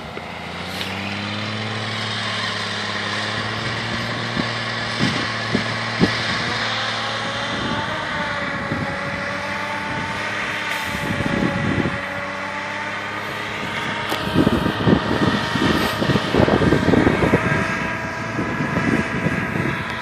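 A V-plow truck's engine running hard as it works through the drifts, its pitch rising and falling a little. Over the last several seconds the sound turns rougher and more uneven.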